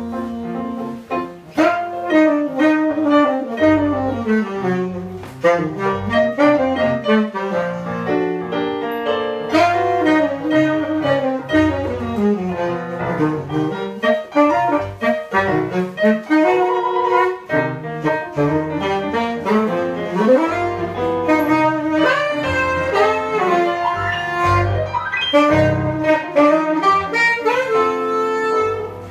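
Live jazz saxophone playing a flowing, ornamented melody with bends and glides, accompanied by a keyboard piano with chords and low bass notes.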